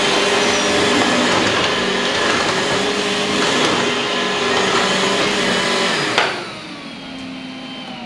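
Makita DVC560Z cordless upright vacuum running steadily over a hard floor, then switched off about six seconds in; its motor winds down with a falling whine.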